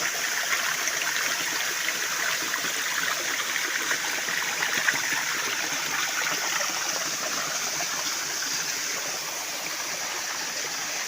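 Waterfall water rushing steadily, an even hiss with no pauses.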